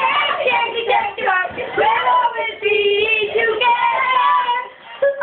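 A child's high voice singing, with bending and held notes; the voice drops away briefly near the end.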